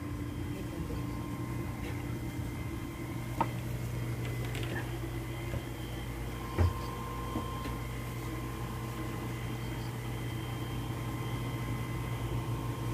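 Steady low machine hum with a few faint high tones over it, broken by a few soft knocks, one about three seconds in and one past halfway.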